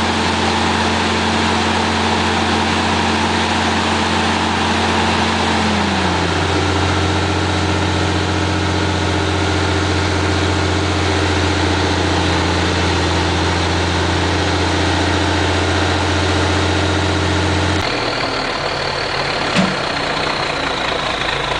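Heavy diesel engine of a semi-truck tractor idling, a loud steady drone; one of its tones drops slightly in pitch about six seconds in. Near the end the sound changes abruptly to a quieter engine sound with one short sharp click.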